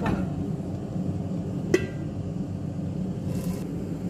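A steel pan lid set down on a stone-coated frying pan: one sharp metallic clank with a short ring, a little under halfway in, over a steady low rumble.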